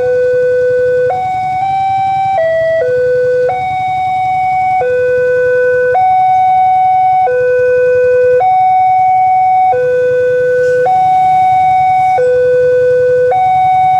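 Railway level-crossing warning alarm sounding a loud two-tone signal, a lower and a higher tone alternating, each held a little over a second, with a brief change in pitch about two seconds in. It signals that a train is approaching the crossing.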